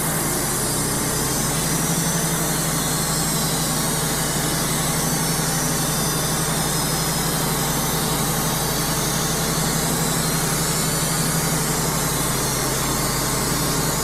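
Wood-Mizer LT35 portable sawmill running steadily, its engine driving the band blade and the debarker, with a constant low hum and no change in level.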